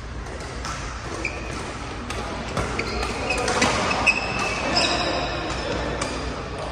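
Badminton rally: sharp racket strikes on the shuttlecock and short squeaks of court shoes on the floor, over background noise from games on other courts.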